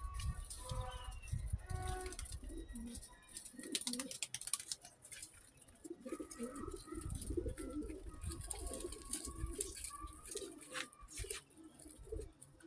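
Domestic pigeons cooing: repeated low, wavering coos, thickest in the middle of the stretch.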